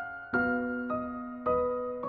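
Slow piano music: notes struck about every half second, each ringing and fading away, with the top note stepping downward.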